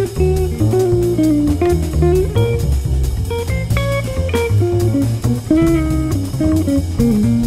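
Jazz recording: a guitar plays a single-note melody, some notes sliding, over bass and a light drum pattern.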